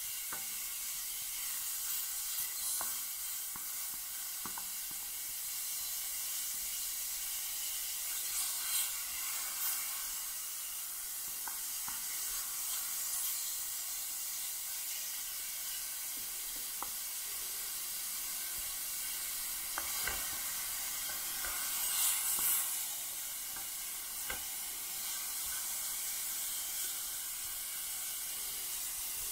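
Diced meat sizzling steadily in a large black steel pan over a wood fire, stirred with a wooden spatula, with scattered clicks and scrapes. A couple of brief louder stirs come about nine seconds in and again a little past twenty seconds.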